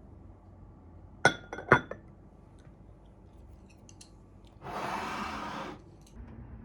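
Two sharp clinks of tableware knocking together, about half a second apart, then a rushing noise lasting about a second.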